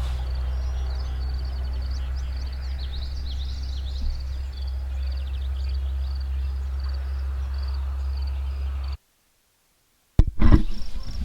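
Songbirds chirping and a regular high pulsing call, about two a second, over a steady low hum. Near the end the sound drops out completely for about a second, then comes back with a click and a rumbling noise.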